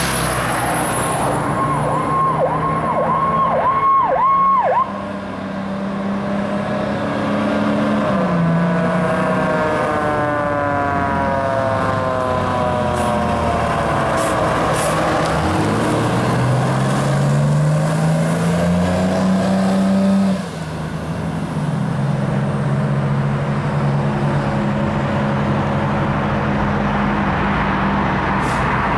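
A 1996 Pierce Dash fire engine responding under siren. For the first few seconds a siren tone wavers and dips, then a siren pitch slides slowly downward. Meanwhile the truck's diesel engine note climbs for several seconds, drops suddenly at a gear change and settles to a steady drone as the truck pulls away.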